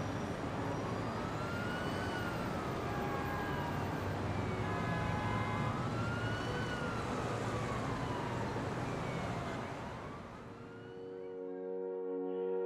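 Emergency vehicle siren wailing, a slow rise and fall that repeats about every four and a half seconds, over a steady wash of noise. Near the end the siren and noise fade and a sustained musical chord comes in.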